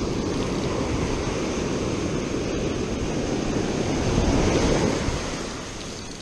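Ocean surf washing on the beach with wind buffeting the microphone; the wash swells louder about four seconds in, then fades.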